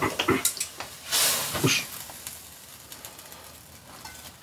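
Chopsticks and a small frying pan clicking and clinking against a pot as ramen noodles are lifted out and dished up. There is a short hissing whoosh about a second in, then only a faint hiss.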